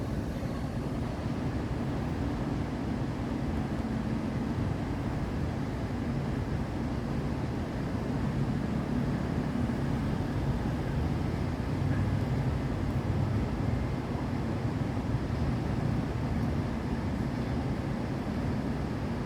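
Steady low outdoor rumble, like distant city traffic, swelling a little about halfway through.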